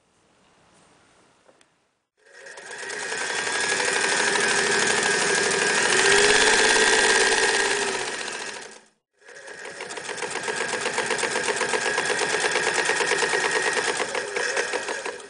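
Electric Singer 99K sewing machine stitching through leather, its needle running in a rapid, even rhythm. It starts about two seconds in, runs for several seconds, stops briefly, then runs again until near the end.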